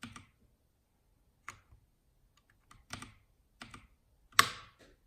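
Massdrop CTRL mechanical keyboard with Halo Clear tactile switches: scattered keystrokes in short, uneven clusters rather than steady typing, with the loudest clack about four seconds in.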